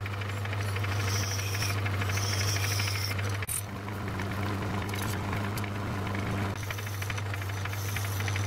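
Metal lathe running steadily with a constant hum and a fine, fast mechanical rattle from its drive, turning a brass-collared workpiece in the chuck. A single sharp click comes about three and a half seconds in, and near the end a hand file is worked against the spinning brass, adding a high hiss.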